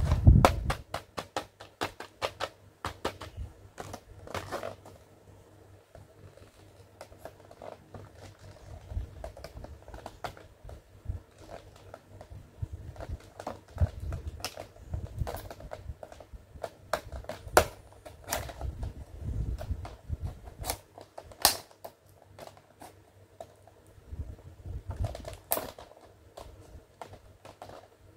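A stiff plastic blister pack and its cardboard backing card being handled and cut open with scissors: a quick run of sharp crackles and clicks at first, then scattered snips, taps and soft knocks.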